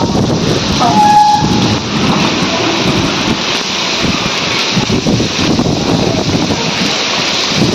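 Heavy monsoon-style rain pouring down, a loud steady hiss with a low rumble underneath.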